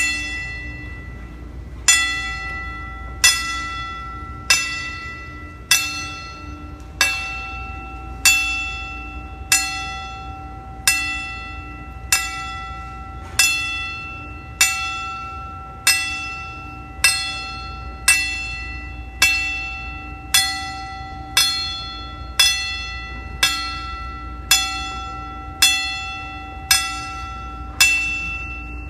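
A bell tolling slowly and evenly, about two dozen strikes roughly one every second and a bit, each ringing out with several clear tones and fading before the next, played back through a hall's loudspeakers over a steady low hum.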